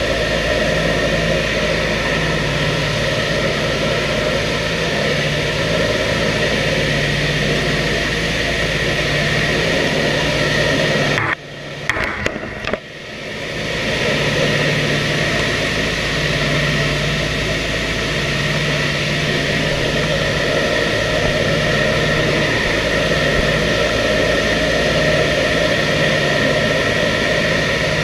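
Cabin drone of a B-25 Mitchell bomber's Wright R-2600 twin radial engines and propellers in cruise flight, heard from inside the fuselage. A slow throb swells and fades every few seconds. The sound briefly drops out about eleven seconds in, then comes back.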